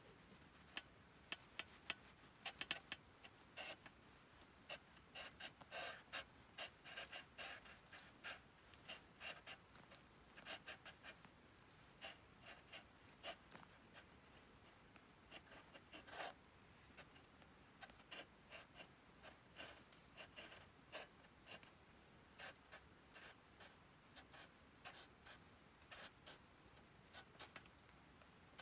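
Faint, irregular small clicks and taps, several a second at times, with short pauses between runs.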